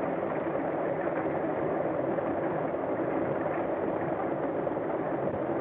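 Propeller airplane engine running steadily at idle, an even drone with no change in pitch.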